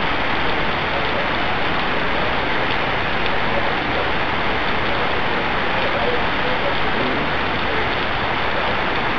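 Heavy rain falling steadily on the street and rooftops, an even hiss with no breaks.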